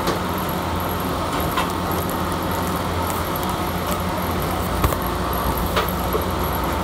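Steady low hum and noise of a busy shawarma shop, with a few light clicks and clinks.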